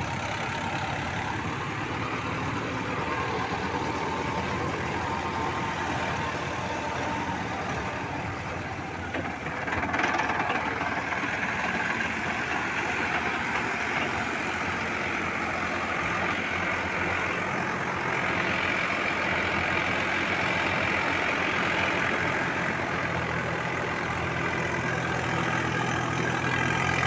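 Sonalika DI 745 III tractor's diesel engine running steadily while driving a Landforce super seeder, growing somewhat louder about ten seconds in.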